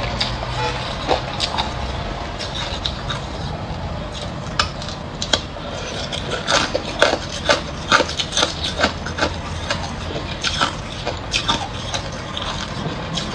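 Hard clear ice being bitten and chewed: a run of sharp crunches and cracks, thicker in the second half.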